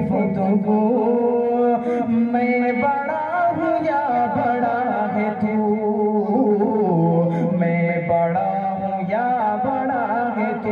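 Male voice singing a naat into a microphone, long held notes with a wavering, ornamented melody.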